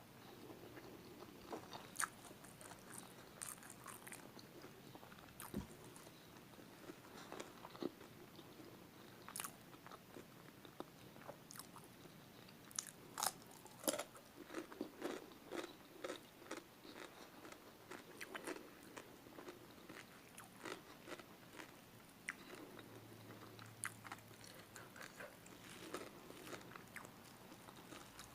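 Close-miked biting and chewing of spicy chicken feet, heard as many irregular sharp clicks and crunches of the mouth.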